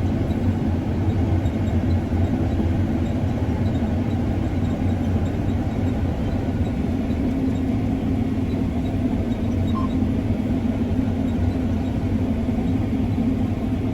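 Combine harvester running steadily under load while cutting thick wheat, a constant low engine hum and rumble.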